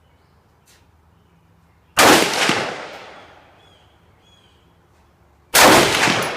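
Two shots from a PSL54C semi-automatic rifle firing 7.62x54R surplus ammunition, about three and a half seconds apart. Each is a sharp crack followed by an echo that rolls away over about a second.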